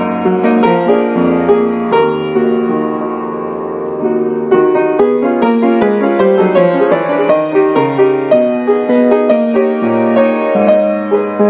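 Background piano music: a steady run of struck notes and chords, at an even flowing pace.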